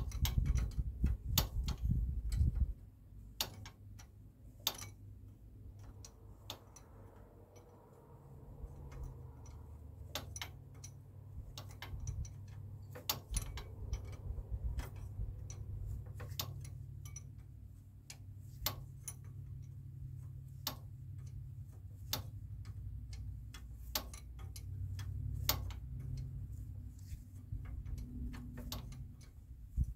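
Hand tools clicking and tapping on engine parts, in scattered irregular clicks over a low steady rumble, with heavier low knocking in the first couple of seconds.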